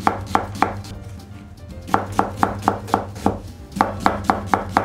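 Kitchen knife thinly slicing an onion on a cutting board, a quick, even run of cuts about four to five a second. The cuts break off for about a second, then pick up again at the same pace.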